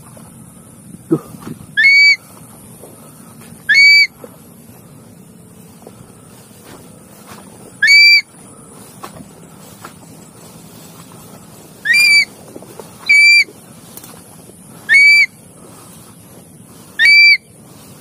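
A shrill whistled call repeated seven times, each a short note that swoops up and then holds, a couple of seconds apart and much louder than the faint rustling between them.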